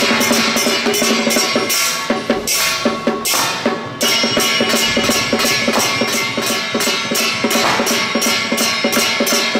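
Procession music: drums and cymbals beating a fast, even rhythm of about five strokes a second over sustained pitched instruments.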